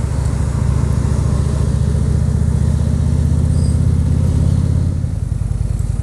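Indian Chief Vintage's 111 cubic inch Thunderstroke V-twin running under way, a steady low pulsing engine sound. The engine note eases off near the end as the bike slows for traffic.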